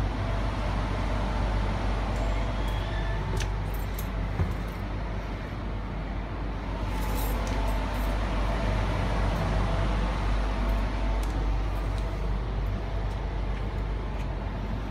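Steady low rumble and hum inside a Sydney Trains Tangara electric train car, with a faint steady whine and a few light clicks and rattles.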